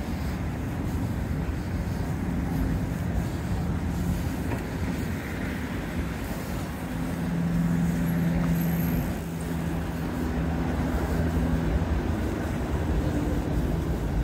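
Outdoor street noise: a steady low rumble, with a couple of held low hums rising above it a few seconds in and again near the middle.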